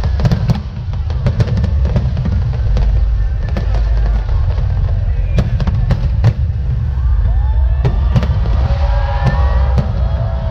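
Fireworks display: aerial shells bursting in a rapid run of sharp bangs and crackles over a constant low rumble. Music plays underneath.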